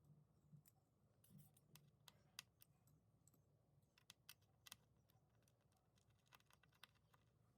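Near silence with faint, irregular small clicks and ticks, a dozen or so spread unevenly, from small parts or tools being handled.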